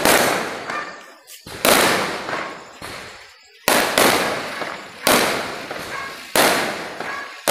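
Diwali firecrackers going off one after another: loud sharp bangs every second or two, about four of them, each trailing off over a second or so.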